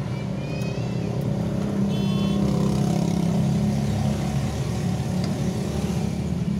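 Steady low engine rumble, with a brief rising squeak about half a second in and a short high tone about two seconds in.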